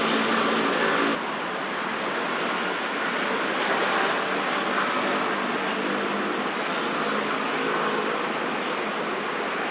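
Steady road-traffic noise, an even wash of sound with no distinct events. About a second in it shifts abruptly to a slightly quieter, duller tone.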